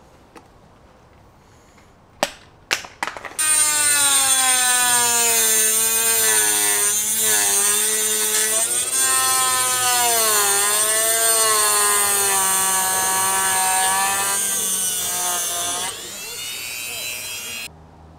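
Handheld electric power tool cutting into a plastic airbox: a few short trigger blips, then the motor runs for about fourteen seconds, its pitch sagging and recovering as it bites into the plastic. Near the end it eases off, speeds up as the load comes off, and stops sharply.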